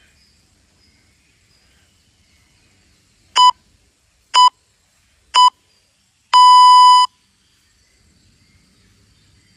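Electronic interval-timer countdown: three short beeps a second apart, then one longer beep on the same pitch, marking the end of a work interval.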